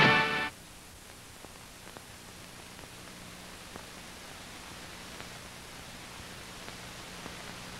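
Music and voice cut off about half a second in, leaving a steady hiss with a faint low hum and a few faint clicks: the background noise of an old analogue tape transfer.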